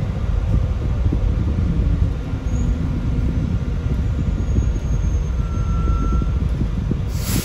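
Sunwin SWB6127EV electric bus riding, heard from inside the cabin: a steady low rumble with faint thin whining tones over it. A brief hiss comes near the end.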